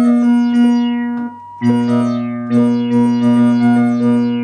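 Bontempi HP 544.20 electronic keyboard playing a short phrase: a run of notes, each struck and then fading, over a held low note. The sound breaks off briefly about a second in, then resumes, and the last note fades away near the end.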